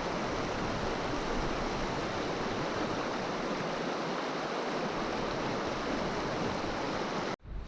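Fast stream water rushing steadily over rocks where two currents meet, loud and close. The sound cuts off abruptly near the end.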